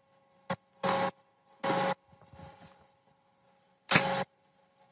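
Pneumatic brad nailer firing three times, driving brads into a red oak frame; each shot is a sharp snap with a short puff of air. A lighter click comes about half a second in.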